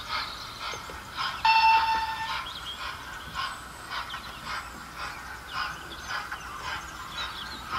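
Steam sound from a model locomotive's sound decoder: rhythmic chuffs about twice a second, matching slow running. About a second and a half in, a short, high, steady whistle sounds for just under a second.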